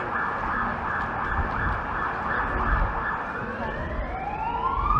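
Emergency vehicle siren going by in a fast up-and-down yelp, then switching about three seconds in to a slow wail that climbs in pitch.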